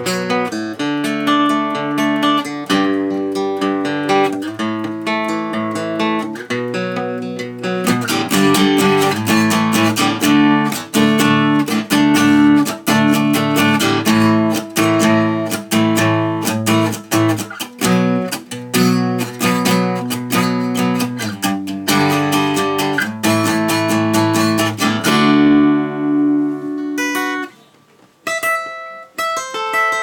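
Yamaha FJX720SC electro-acoustic guitar played through the camera's built-in microphone: picked chords and notes with busy strumming through the middle. Near the end the sound dies away briefly, then higher picked notes start again.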